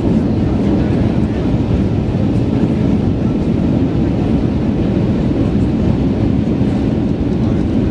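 Steady low rumble of engine and airflow noise inside the cabin of an Airbus A320 airliner during its landing, even in level throughout.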